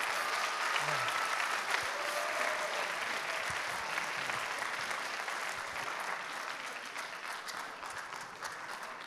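Audience of students applauding, a steady wash of clapping that tapers off near the end.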